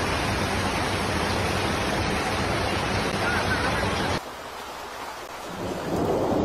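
Heavy rain and floodwater rushing through a street: a loud, steady hiss that cuts off abruptly a little past four seconds in. After a quieter moment, a deeper rush of flowing water builds near the end.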